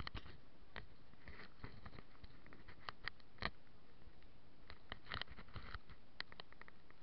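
Handling noise on a small camera's microphone: a steady faint hiss broken by irregular small clicks and taps, thickest about five seconds in.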